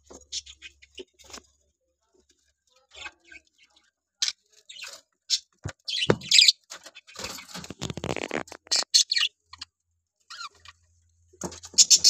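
Budgerigars chirping and chattering in short, scattered calls, with a few sharp clicks and a busier spell of chatter a little past halfway.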